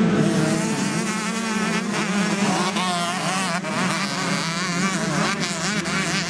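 Several motocross bikes revving hard under load, their engine notes overlapping and rising and falling repeatedly as the riders work the throttle and shift gears.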